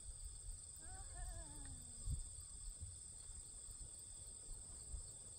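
Steady high-pitched insect chorus. A short falling call is heard about a second in, and a low thump about two seconds in.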